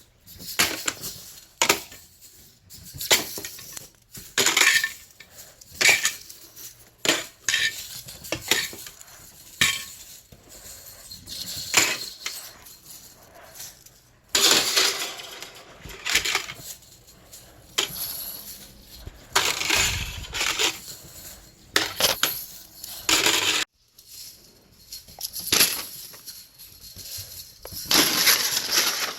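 A slinky jangling and clattering against hard objects in irregular bursts, about one every second or so, with sharp clinking.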